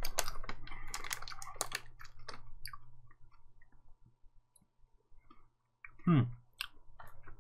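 Crunching of hard sugar-shelled chocolate candies (Lacasitos Gold) being chewed, a quick run of crisp clicks that thins out after about two seconds. About six seconds in, a short hum with falling pitch.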